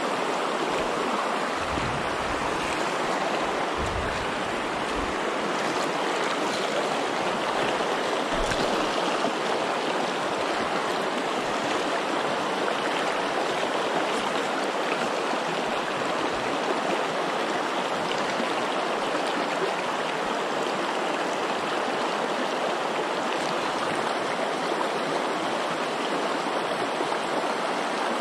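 Steady rushing of the North Fork of the Virgin River flowing through the canyon, with a few low thumps in the first several seconds.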